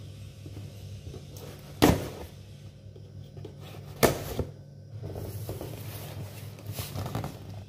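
Hand blender box and packaging being handled: light rustling with two sharp knocks about two seconds apart, over a steady low hum.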